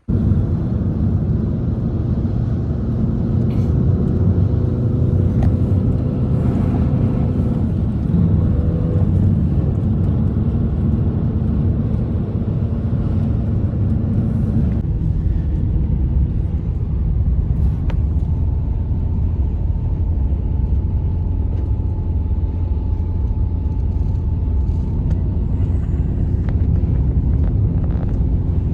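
Blizzard wind blowing hard and steadily, a deep rumble with faint steady whistling tones in it.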